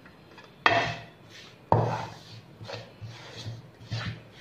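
Metal spatula scraping and stirring crumbly rice-flour dough in a metal bowl. Two sharp, louder scrapes come near the start about a second apart, followed by several shorter, softer strokes as the hot water is worked into the flour.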